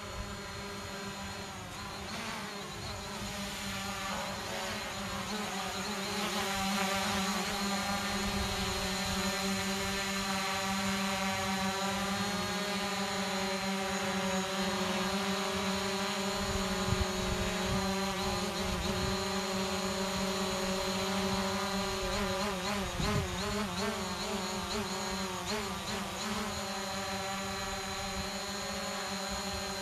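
Hubsan Zino Pro quadcopter's propellers buzzing as it hovers and flies low close by: a steady whining hum whose pitch wavers up and down for a few seconds past the middle.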